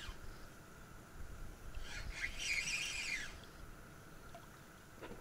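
Spinning reel wound in short bursts during a stepped jig retrieve: a whirring hiss about a second and a half long that rises as the handle speeds up and falls away as it stops, with the end of an earlier burst right at the start and pauses between.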